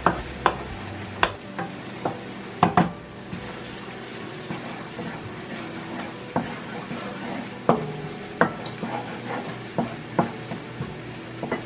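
Wooden spoon stirring and tapping against a metal pot as rice and onion fry, with a low steady sizzle underneath; sharp knocks come irregularly, about one a second.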